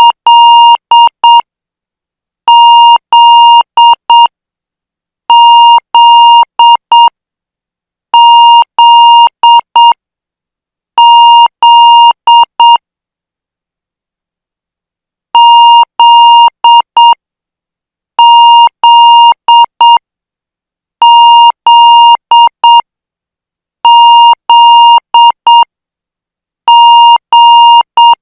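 Morse code practice tone, a steady beep near 1 kHz, keyed at about 8 words per minute. It sends the same short group again and again, about one every three seconds, with a longer pause about halfway through. Each group has two longer dashes followed by two short dots, the pattern of the letter Z.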